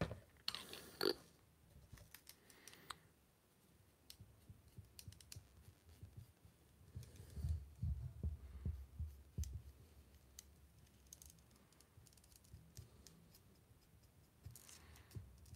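Faint, scattered clicks and rubbing of a plastic action figure being handled while its neck is wiped with an alcohol-dampened cotton swab, with a short louder noise about a second in and a cluster of low handling bumps about halfway through.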